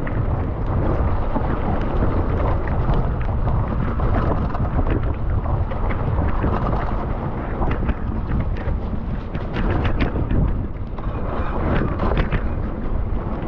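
Heavy wind buffeting on the microphone as a mountain bike rolls down a wet dirt and gravel track, with tyres crunching over stones and many sharp rattles and clicks from the bike over the bumps.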